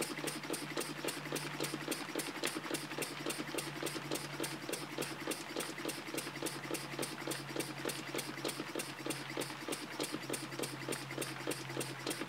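Elmer's wobble-plate model steam engine, built at twice scale, running steadily at an even speed. Its valve and exhaust give a quick, regular ticking beat of about five strokes a second.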